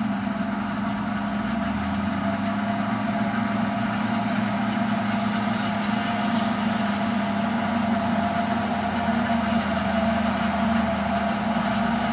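Forage harvester chopping maize with tractors and a silage wagon running alongside: a steady machine drone with a constant hum.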